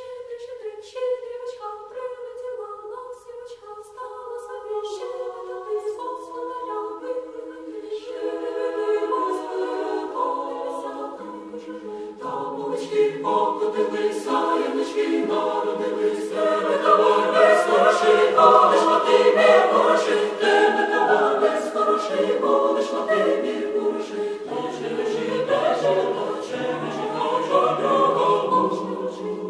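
Choir singing a cappella: higher voices at first, lower voices joining about eleven or twelve seconds in, the singing growing fuller and louder towards the middle.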